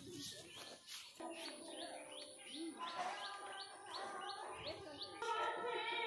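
A bird chirping a quick, regular run of short rising notes, about three or four a second. Music with held tones comes in near the end.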